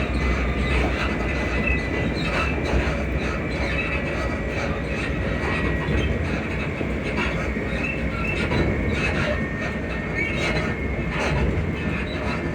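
Class 334 electric multiple unit running along the line: a steady rumble with irregular clicks and knocks from the track, and short high squeaks from the suspension coming and going throughout.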